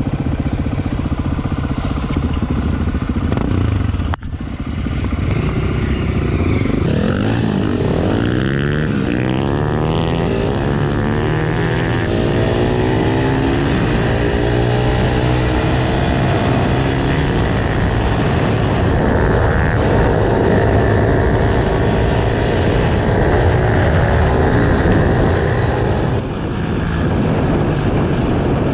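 Enduro dirt bike engine running under load on a trail. The throttle drops briefly about four seconds in, then the engine climbs in pitch as it accelerates and holds at steady revs, with another short let-off near the end.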